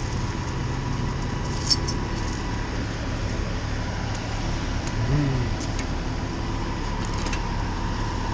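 Heavy diesel vehicles idling with a steady low rumble, over passing road traffic, with a few light metallic clinks, the sharpest about two seconds in.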